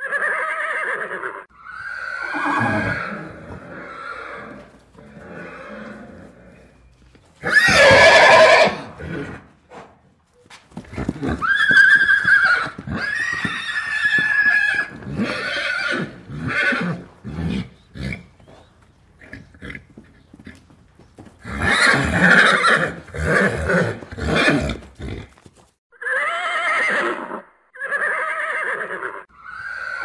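Horses neighing and whinnying in a long string of separate calls with short pauses between them, the loudest about eight seconds in.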